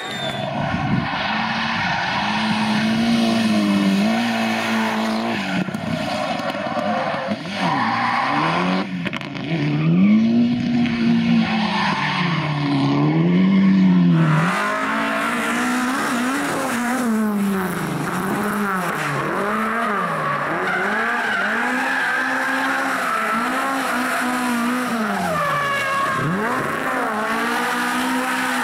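Rally car engines revving hard, the note swinging up and down over and over on and off the throttle, with tyres squealing and skidding as the cars slide. The sound changes abruptly about halfway through as another car takes over.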